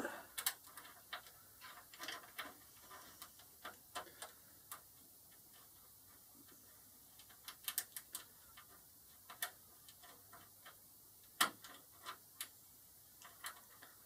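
Small metallic clicks and ticks of a lock pick and tension wrench working the pins inside a pin-tumbler door lock cylinder. They come irregularly, thin out for a few seconds in the middle, and one sharper click comes later on.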